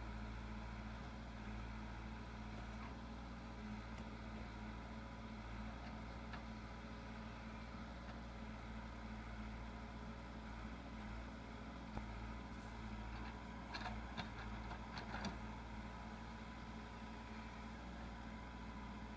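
Backhoe loader's engine running steadily, with a few short clanks and knocks about two-thirds of the way through.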